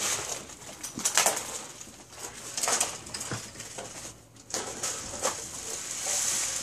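Irregular swishing and rustling as a child twirls and dances, about six short bursts.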